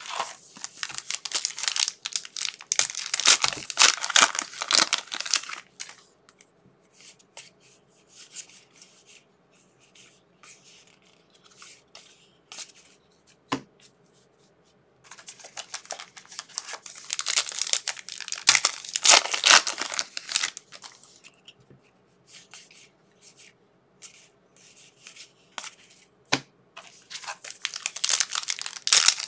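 Trading card pack wrappers being torn open and crinkled in three long spells: at the start, in the middle and near the end. Between them come scattered light clicks of cards being handled.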